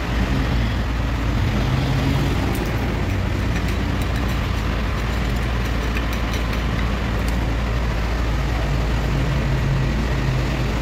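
A steady low mechanical drone with a hum underneath, and a few faint ticks in the middle.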